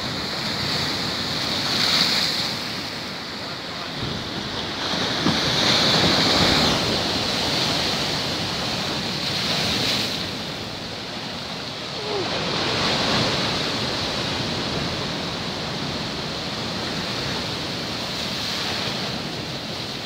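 Rough sea: large storm waves breaking and crashing onto a rocky shore, a continuous rush of surf that swells louder every few seconds as each wave breaks.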